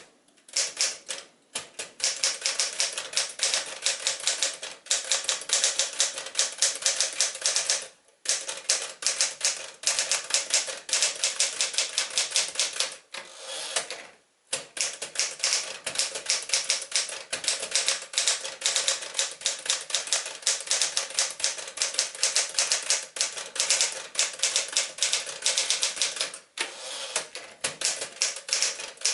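1965 Penncrest Caravelle manual portable typewriter, built by Smith-Corona, being typed on at a brisk pace: a rapid run of key and typebar clicks with short breaks about 8 and 14 seconds in.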